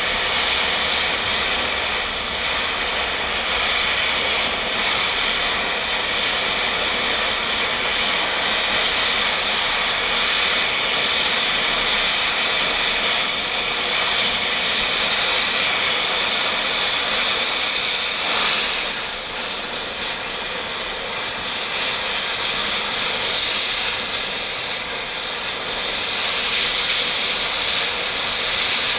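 A cutting torch running with a steady loud hiss as it cuts through steel, easing off briefly about two-thirds of the way through.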